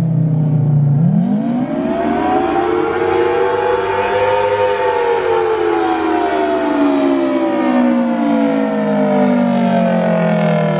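Federal Signal Thunderbolt 1000T outdoor warning siren sounding the attack signal. It winds up from a low pitch about a second in, peaks a few seconds later, then slowly falls in pitch.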